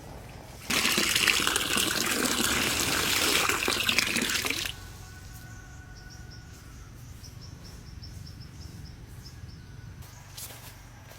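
Water pouring in a heavy gush that starts and stops suddenly, lasting about four seconds, followed by a faint trickle.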